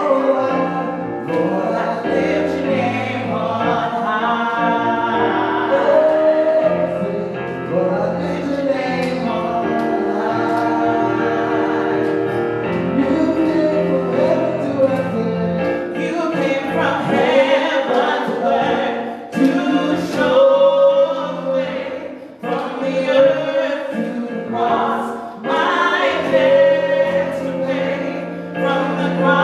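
A gospel worship song: a man and a woman singing over instrumental accompaniment with held chords and a bass line.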